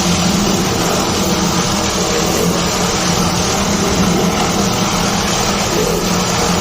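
A machine's motor running steadily, with a constant low hum under an even rushing noise.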